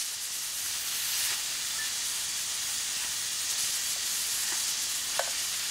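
Nitrogen plastic welder's hot-gas nozzle hissing steadily while it melts a polyethylene welding rod into a crack in a high-density polyethylene reservoir. A few faint clicks come near the end.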